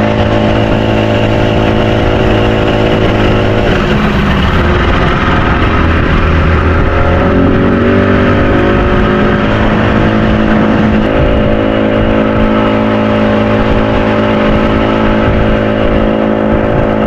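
Fishing boat's motor running under way at a steady pitch; a few seconds in it eases off and the pitch drops, then it climbs back up and holds steady again.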